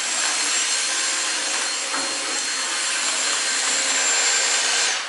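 Cordless stick vacuum cleaner running steadily, a rushing motor noise with a high whine. It is switched off near the end and the sound drops away abruptly.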